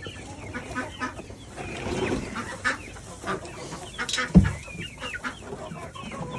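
A flock of young hens clucking and calling in short, repeated calls, with one loud knock about four seconds in.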